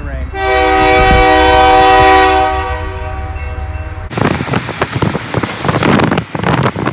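Train horn sounding one long, loud, steady chord for about three seconds, fading before it cuts off abruptly. After that comes a rough rushing noise with irregular knocks.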